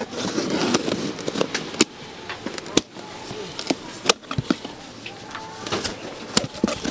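Irregular sharp clicks and knocks of cooking utensils and containers being handled, over faint background voices.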